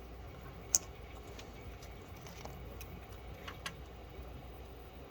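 A few light clicks and taps of small parts and tools being handled while a replacement DVR cooling fan is fitted, the sharpest about a second in and two more close together past the middle, over a faint room hum.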